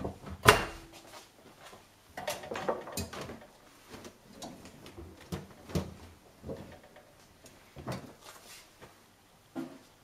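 Samsung front-loading washing machine door unlatched and pulled open with a sharp clunk about half a second in, then scattered soft knocks and rustles as laundry is pulled out of the drum.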